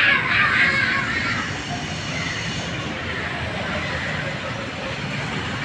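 Road traffic noise: a steady rumble and hiss of passing vehicles, louder for the first second or so.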